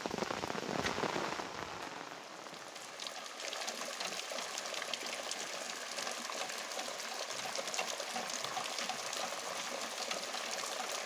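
Heavy rain falling, a dense hiss of many drop impacts, easing slightly in loudness about two seconds in.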